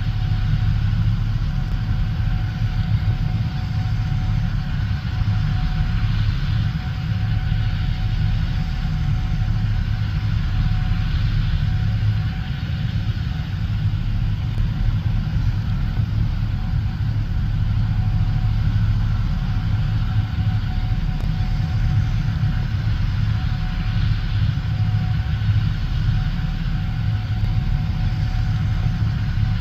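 Gleaner S77 combine harvester running steadily while harvesting corn: a deep, even engine drone with a faint steady whine above it.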